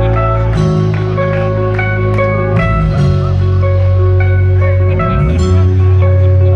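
Rock band playing live in an instrumental passage: a melody of separate ringing notes over sustained low bass notes that change every second or two.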